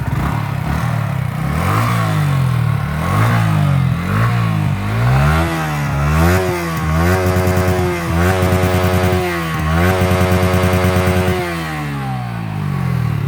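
Yamaha R15 V3 motorcycle's single-cylinder engine revved in a few short throttle blips, then held at high revs for about four seconds before dropping back to idle near the end.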